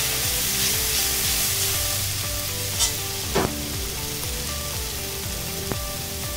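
Sliced onions sizzling steadily in oil in a cast-iron Dutch oven as they soften, stirred with a spatula, with a couple of sharp spatula knocks against the pot about three seconds in.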